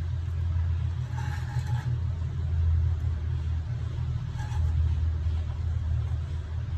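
A steady low rumble, wavering a little in loudness, with faint short higher-pitched sounds about a second in and again past the four-second mark.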